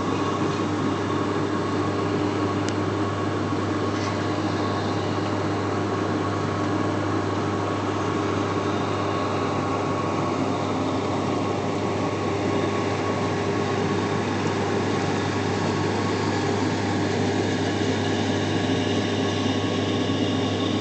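AquaCannon aeration system running: a steady mechanical hum with a constant low drone and a few steady higher tones.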